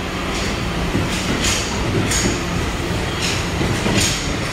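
Tokyo Metro 02 series subway train standing at an underground platform, its equipment humming steadily, with several short hisses.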